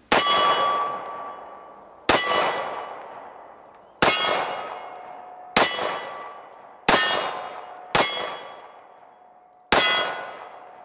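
Seven shots from a Colt 1911 MK IV Series 80 Government Model .45 ACP pistol firing 230-grain full metal jacket rounds, spaced one to two seconds apart. Each shot is followed by the clanging ring of a hit steel target. The pistol runs through the string without a malfunction.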